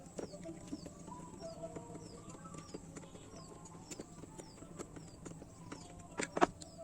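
Faint clicks and taps of a 7 mm T-wrench and metal parts while the two bolts on a motorcycle starter motor are undone to open its cover, with two louder knocks about six seconds in. A faint high chirp repeats about twice a second throughout.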